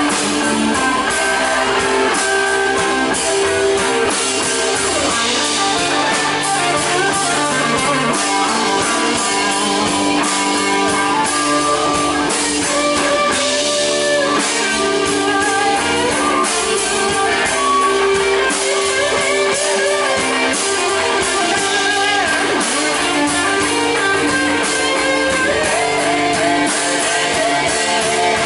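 Live band playing a slow blues instrumental passage: an electric guitar lead with bent notes over drums, keyboard and rhythm guitar.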